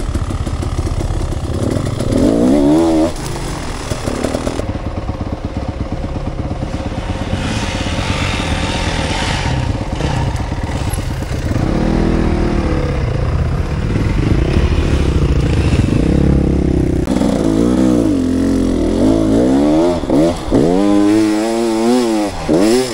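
Enduro dirt bike engine revving up and down under the throttle, its pitch climbing and falling again several times, most often near the end.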